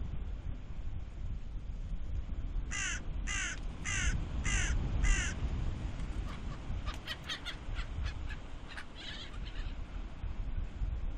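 Seagull calling: five loud, downward-falling calls about half a second apart, then a run of shorter, fainter calls. A steady low rumble of wind and waves runs beneath.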